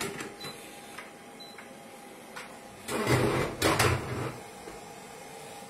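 Plastic lid of a Cecotec Mambo 8590 multicooker being unlocked and lifted off: a few light clicks, then a louder clatter with a dull thud about three seconds in.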